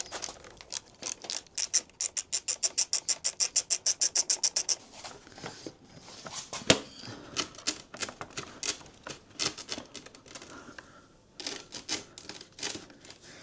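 Hand ratchet clicking rapidly, about eight clicks a second for some three seconds, as the motorcycle fairing screws are backed out. Then one sharp knock, followed by irregular clicks and rattles of tools and plastic.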